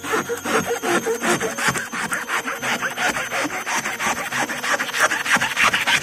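Knife sawing through a lump of dried rubber-tree latex in rapid, even back-and-forth strokes, about six a second.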